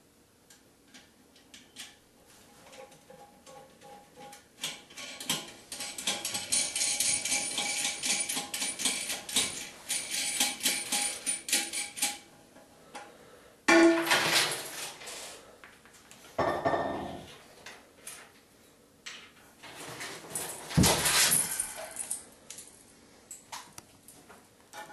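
Metal hardware and tools clinking and clicking as nuts are worked onto toilet tank bolts: a long run of rapid small clicks, then a few louder knocks and scrapes.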